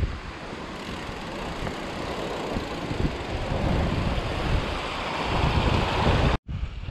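Wind buffeting the camera microphone over the rumble of a mountain bike rolling down a rocky trail. The hiss grows louder toward the end, then the sound cuts off abruptly.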